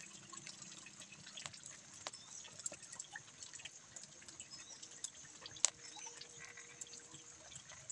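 Faint, scattered drips and ticks of light rain falling, with one sharper tick a little past the middle.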